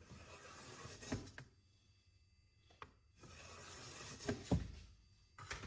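Faint scratching of a steel divider point scribing arcs across sheet metal in two strokes, with a few light clicks and taps as the tool is set down and moved.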